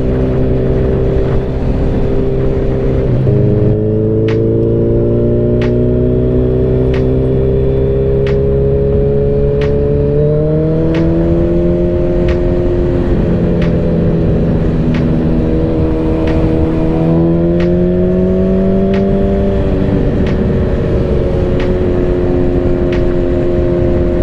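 Suzuki Hayabusa's inline-four engine running under way at road speed, heard from the rider's seat with wind rush. Its note drops sharply about three seconds in, then climbs slowly and eases back twice more.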